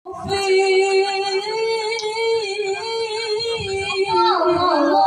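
A woman singing sholawat solo into a microphone: one long held note with a slight waver, breaking into quick ornamented turns about four seconds in.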